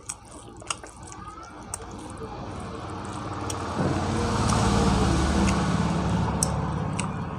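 A motor vehicle passing by: engine rumble and road noise swell to a peak about four to six seconds in, then fade away.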